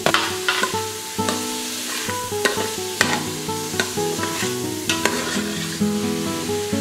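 Diced onions and garlic sizzling in hot oil in an Instant Pot's stainless steel inner pot, stirred with a spoon that scrapes and clicks against the pot at irregular moments.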